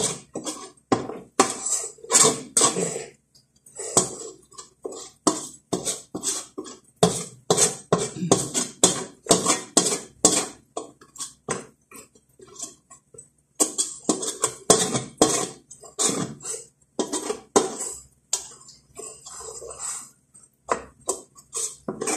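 A utensil scraping and knocking against the inside of a steel cooking pot while pinipig is stirred, in quick irregular strokes several a second, with a short break about halfway through.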